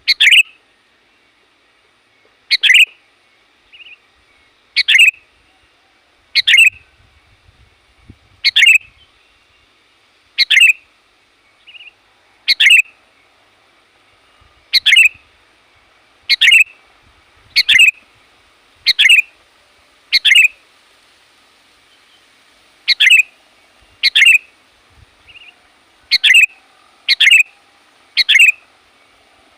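Sooty-headed bulbul (kutilang) giving short, sharp, loud calls, repeated every one to two seconds, with one longer pause partway through. The calls are used as a lure to call in wild bulbuls.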